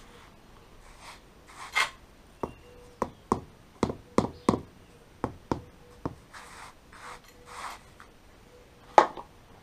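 Rubber mallet knocking concrete paving blocks down into a sand bed beside a drain channel: a quick run of sharp knocks, then one louder knock near the end. Gritty scraping in between as blocks are pushed against each other over sand.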